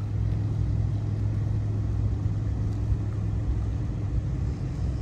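A steady, low engine hum.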